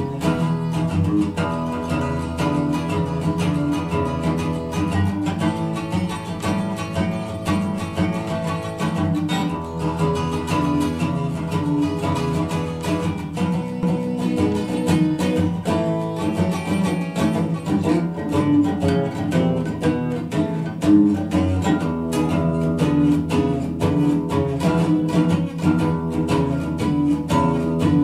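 Acoustic blues played on guitar, coming through KEF LS50 bookshelf speakers and picked up by a microphone in the room.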